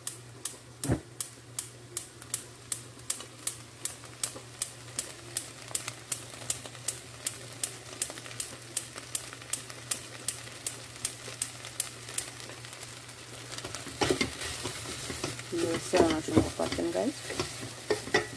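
Wooden spoon stirring chopped onions in a metal pot, knocking against the pot about three times a second, with the onions sizzling as they cook dry without oil. About fourteen seconds in the stirring turns busier and the sizzling louder.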